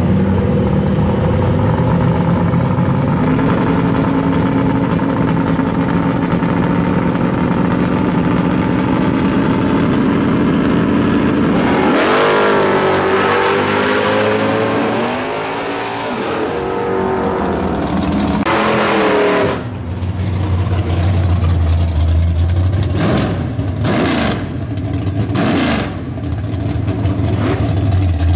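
Drag-racing cars' engines held at the start line with revs raised, then launching about twelve seconds in and accelerating hard away through the gears. From about twenty seconds in, another drag car's engine idles deep and low, with three quick throttle blips.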